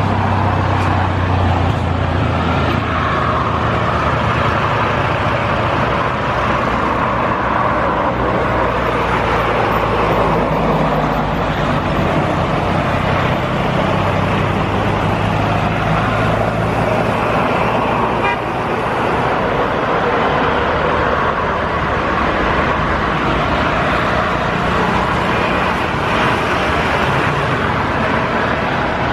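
Boeing 737-800's CFM56-7B turbofan engines running at taxi power as the airliner turns onto the runway to line up. A steady jet rumble with a low hum, holding level with little change.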